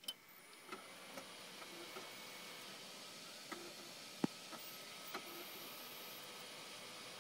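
Desktop PC running with a steady whirring hiss and faint steady tones, the abnormal 'shuru-shuru' swishing that the owner hears from around the CPU area. Irregular soft clicks and ticks sound over it, the sharpest about four seconds in.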